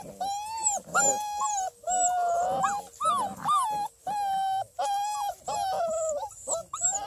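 Redbone coonhound puppies whining: a run of about ten high-pitched, drawn-out whines, one after another.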